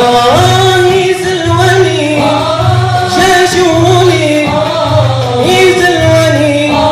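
Male nasheed ensemble singing a melodic Arabic chant together, the voices gliding and wavering on long notes, over an even beat of frame drums.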